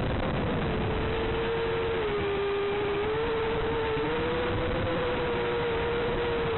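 Racing quadcopter's DJI Snail brushless motors whining at a near-steady pitch, heard over the hiss of analog FPV audio. The pitch dips slightly about two seconds in and comes back up a second later, following the throttle.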